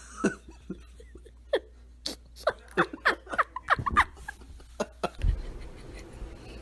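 A person giggling in a quick run of short, breathy squeaks, each falling in pitch and coming thickest near the middle. Near the end a steady low rumble takes over.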